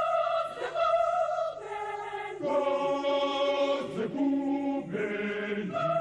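Choral music: voices singing a succession of long held notes, the chord changing every second or so.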